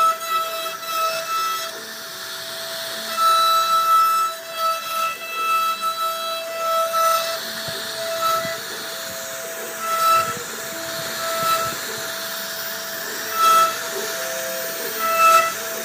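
CNC router spindle whining steadily as the bit carves wood, its tone swelling and fading every second or so as the cutting load changes, over a rushing noise of the cut.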